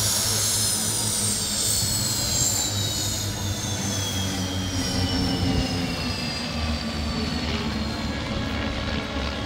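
L-39 Albatros jet flying past, its high turbine whine sliding steadily down in pitch as it moves away, over a low engine rumble.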